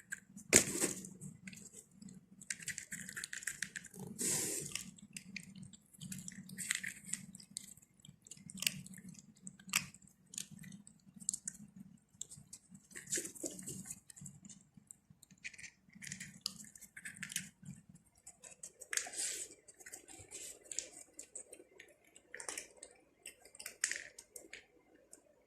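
A cat eating, with irregular chewing and clicking sounds over a low steady hum.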